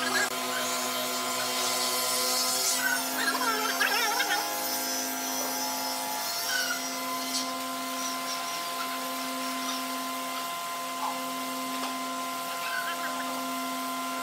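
Steady hum of a running machine with several held tones, shifting slightly in pitch a couple of times, and a brief wavering sound about three to four seconds in.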